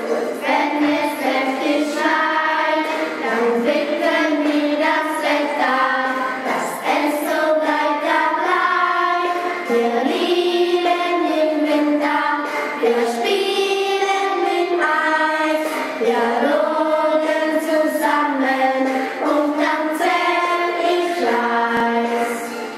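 A group of children singing a song in German together, in held notes that change about every second.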